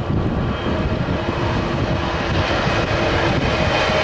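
Diesel freight locomotive hauling a container train, its engine's steady drone growing louder as it approaches, with wind buffeting the microphone.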